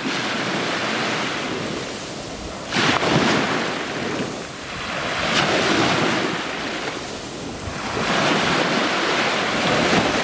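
Small waves washing onto a sandy beach, each surge swelling and drawing back about every two and a half to three seconds, the sharpest break about three seconds in.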